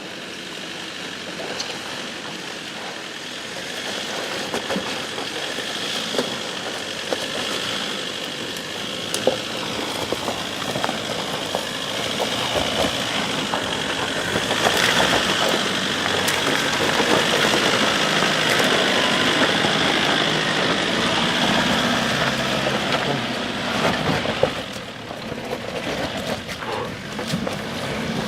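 Off-road vehicle engine running under load, growing louder through the first half and easing off near the end, with scattered knocks and clicks.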